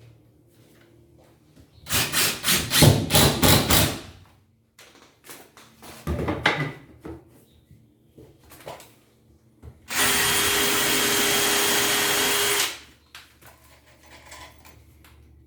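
Power drill running steadily for nearly three seconds and then stopping, during furniture installation. Before it, a two-second run of knocks and rattling and a shorter clatter of tools and wood.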